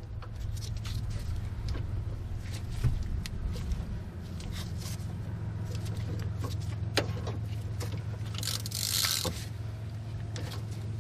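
Hand ratchet clicking irregularly as it winds an OTC 7317A caliper tool, turning a rear disc brake caliper piston back into its bore. A steady low hum runs underneath, and a brief scraping rasp comes near the end.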